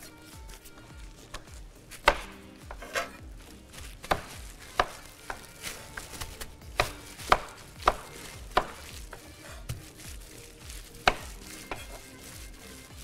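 Kitchen knife chopping carrots on a cutting board: about a dozen sharp chops at an uneven pace, with short pauses between them.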